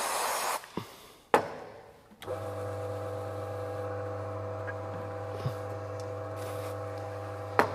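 A short aerosol spray of degreaser hisses, then there is a click, and about two seconds in the friction test machine's electric motor starts and runs with a steady hum.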